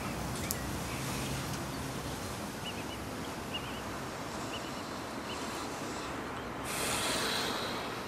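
Outdoor ambience: a steady hiss with a few faint high chirps, a single click about half a second in, and a louder swell of hiss near the end.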